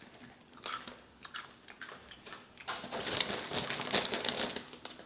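A person biting and chewing crunchy snack food close to the microphone. Scattered single crunches come first, then a denser run of crunching and chewing near the end.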